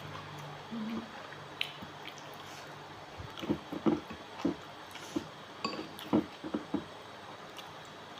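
A person eating raw seafood, with wet chewing and smacking mouth sounds. They come as a cluster of short, irregular bursts starting about three seconds in and stopping near the end.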